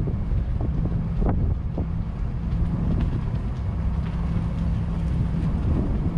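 Wind rumbling on the microphone, with a steady low hum and scattered light clicks over it.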